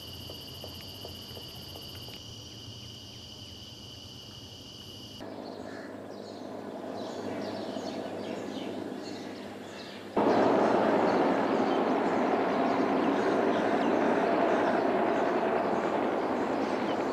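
Military helicopters flying overhead, Pakistan army AH-1 Cobra attack helicopters, heard as a steady engine and rotor noise that grows and then gets much louder suddenly about ten seconds in. The first few seconds hold a steady high insect drone instead.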